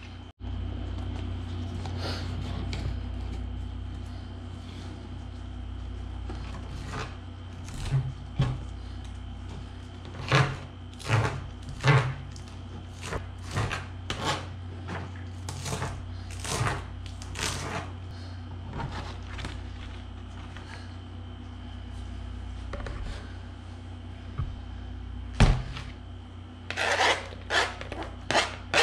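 Kitchen knife chopping scallions on a plastic cutting board: sharp, irregular taps one or two a second, a quick flurry near the end, over a steady low hum.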